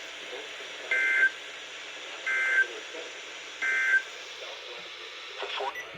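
EAS/SAME digital data tones on NOAA Weather Radio: three short bursts of two-tone code about a second apart, the end-of-message signal that closes the alert test, over steady radio hiss.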